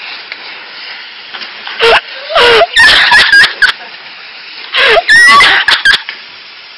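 Pressure-washer spray hissing steadily on wet concrete, broken twice, about two and five seconds in, by loud, distorting shrieking voices close to the microphone.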